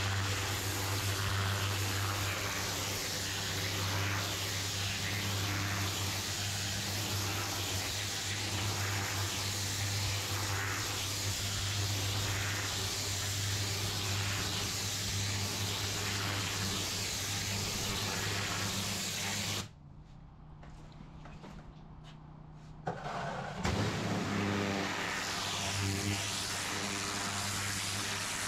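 Engine-driven pressure washer running, its motor droning steadily under the hiss of the lance's jet hitting block paving. About twenty seconds in the spray and drone drop away for roughly four seconds, then start up again.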